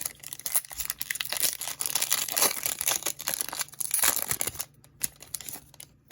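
Wrapper of a 2024 Phoenix Football trading card pack being torn open and crinkled: a dense crinkling rustle for about four and a half seconds, then a few lighter crinkles that stop about a second later.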